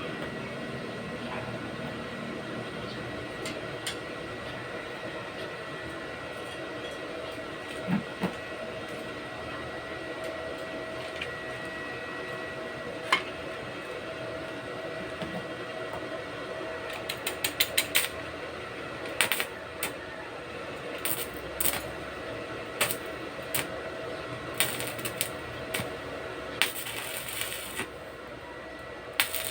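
Scattered sharp clicks and light clinks of small hard objects being handled, more frequent in the second half, with a quick run of ticks just past the middle, over a faint steady hum.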